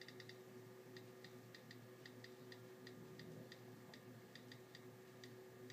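Faint, irregularly spaced clicks of an iPod Touch 4th generation's on-screen keyboard, a dozen or so, as a Wi-Fi password is typed in.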